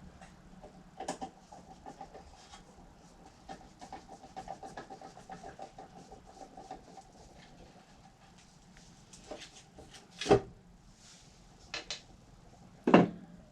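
Hand-tool work on an air compressor's motor cover while a screw is worked out: a run of small quick clicks, then a few sharp metal knocks, the loudest about ten and thirteen seconds in.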